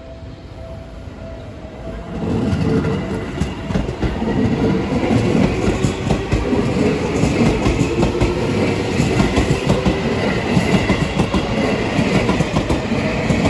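A Seibu Railway electric train passing close by. The sound rises sharply about two seconds in and stays loud, with rapid rattling from the wheels on the rails.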